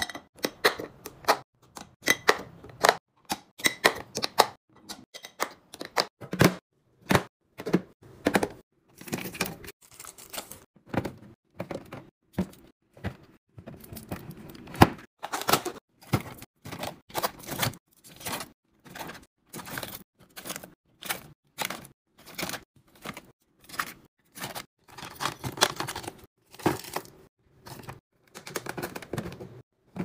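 Hands handling plastic food-storage containers and packaging while restocking a fridge: a quick, uneven run of taps, clicks and knocks as containers and lids are set down, with short stretches of rustling.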